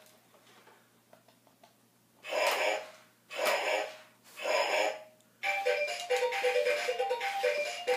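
Robosapien toy robot's built-in speaker giving three short, gruff electronic vocal sounds about a second apart, then from about five seconds in playing a beeping electronic tune, the music of its dance routine.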